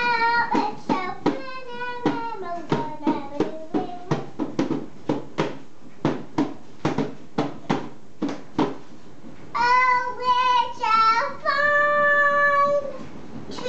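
A small boy singing while beating a plastic toy drum with his hands. There is a steady run of sharp hand beats, about three or four a second, through the middle with little singing, then long held sung notes near the end.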